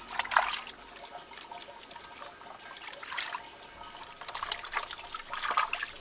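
Water trickling and splashing in short, irregular spells: once just after the start, again around three seconds, and through the last second and a half.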